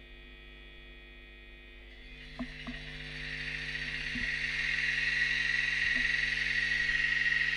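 Air-compressor sound from the DCC sound decoder of an Arnold N-gauge DB class 181 locomotive, played through its small onboard speaker: a hiss with a steady whine that starts about two seconds in and grows louder.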